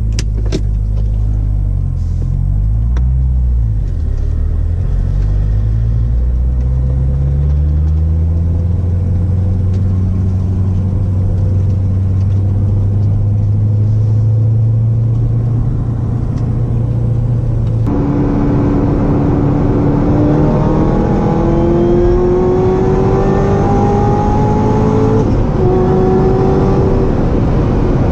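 Cabin sound of a Corvette ZR1's supercharged 6.2-litre V8. At first it rumbles at low revs, pulling away slowly with the pitch rising gently. After an abrupt cut about two-thirds in, the engine pulls hard at high speed over wind and road noise, its pitch climbing, with one upshift near the end before it climbs again.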